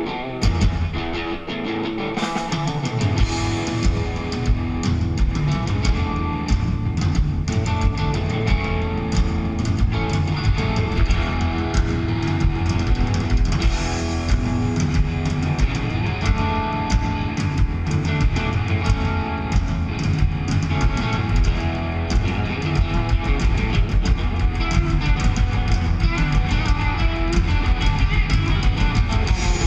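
Live rock band playing an instrumental intro: guitar with the drum kit and bass coming in a couple of seconds in, the beat getting busier near the end.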